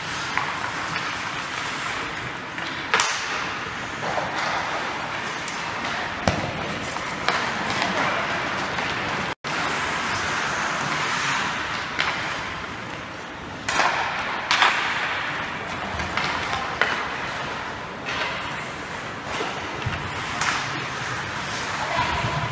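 Ice hockey skating and puck play in an indoor arena: a steady scrape of skate blades on the ice, broken by sharp cracks of sticks striking pucks and pucks hitting the boards, loudest about three seconds in and again around fourteen seconds.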